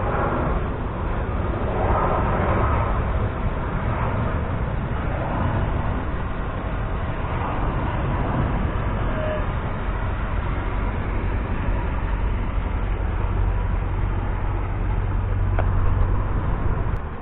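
Motorboat engine running as the boat passes along the river: a steady low drone that grows louder near the end.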